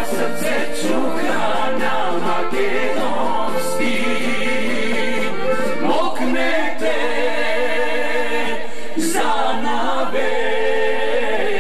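A man and a woman singing together through microphones, with other voices joining in; no instruments stand out.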